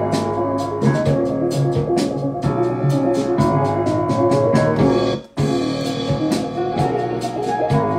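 A trap beat playing back from FL Studio: keyboard chords over a bass line and drums with steady hi-hat ticks. It cuts out for a split second a little past five seconds in, then carries on.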